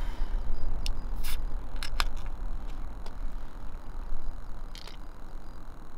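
Low steady wind rumble on the microphone, with a few short sharp clicks and taps as a drink can is handled and sipped from.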